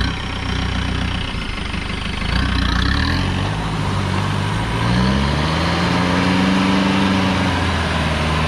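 Off-road vehicle's engine running, its revs climbing about halfway through and held high for a couple of seconds before easing slightly.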